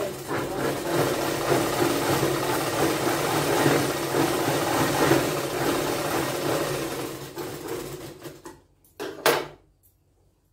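Sewing machine stitching fabric, running steadily. It slows about seven seconds in and stops soon after. A short, loud knock or rustle follows about nine seconds in.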